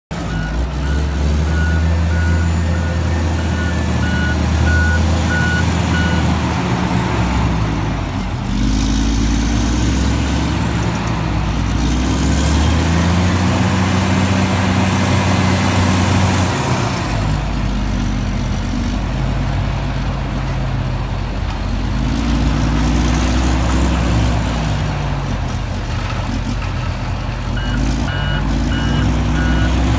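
Big diesel wheel loader working under load, its engine revving up and down several times as it digs into the pile, drives and lifts its bucket. A reverse alarm beeps steadily for the first six seconds or so and starts again near the end.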